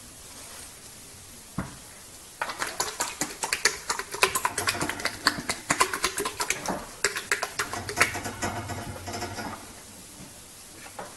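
Horse flapping and smacking its lips: a fast, irregular run of clicks and pops starting about two and a half seconds in and stopping shortly before the end, after a single knock.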